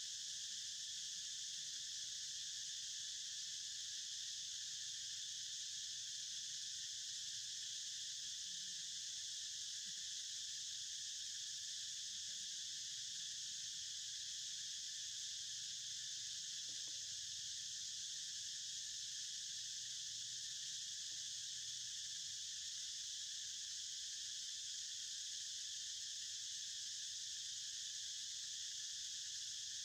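A steady, unbroken chorus of insects shrilling in the forest.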